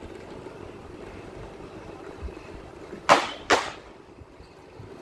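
Steady low rumble of a slowly moving vehicle, broken about three seconds in by two loud, sharp bangs half a second apart.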